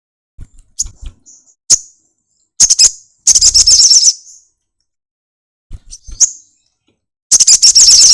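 Sunbird singing: a few sharp, high chirps, then a loud, fast, high trill about two and a half seconds in, and a second long trill starting near the end.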